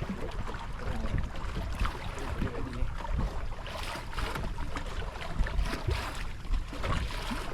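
Wind rumbling on the microphone and water rushing past a sailing canoe as it moves under sail.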